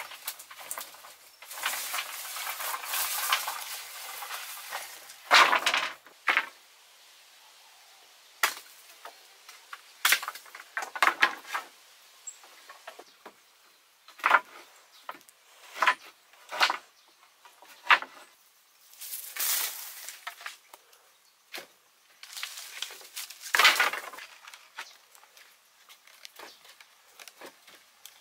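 Thin wooden poles clattering and knocking against each other and the frame as they are set down and laid side by side: a longer rattle in the first few seconds, then separate sharp knocks, a few seconds apart or in quick pairs.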